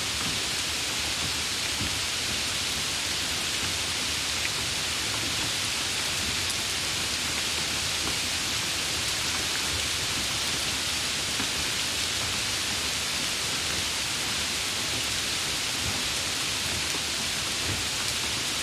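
Steady heavy rain falling, an even hiss.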